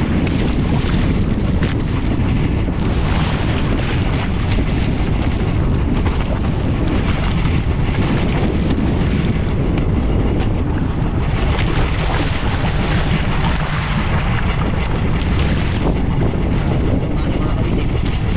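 Fishing boat under way at sea: a steady, loud wash of wind buffeting the microphone over the boat's running and water noise.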